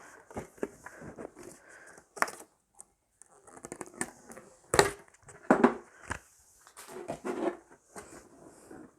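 Hands unpacking a Pokémon card tin: irregular crinkles, rustles and small clicks from packaging and cards being handled, a few louder handling noises near the middle.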